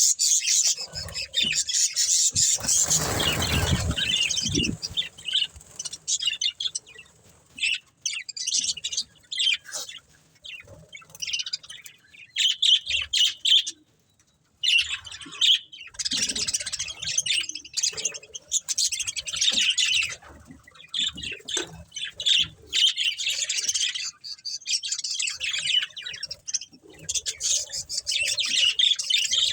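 Pet budgerigars chattering and chirping in a busy, continuous warble of short high chirps, with a brief rush of noise about three seconds in and a short pause near the middle.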